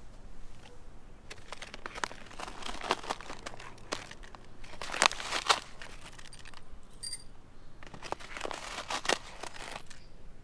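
Packaging crinkling and rustling as it is handled, with irregular small clicks and knocks.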